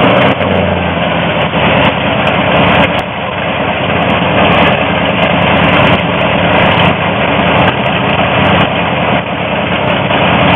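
Paxton-supercharged V8 of a 1964 Studebaker Daytona R3 idling steadily and loud, close up.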